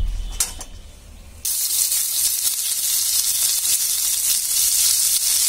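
Sliced red onions dropped into hot oil in a nonstick frying pan, setting off a loud, steady sizzle that starts suddenly about a second and a half in. A couple of light knocks come just before it.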